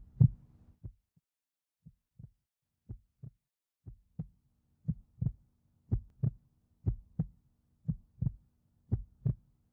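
Paired low thumps in a heartbeat rhythm, about one pair a second, growing louder. A faint low hum comes in under them about four seconds in.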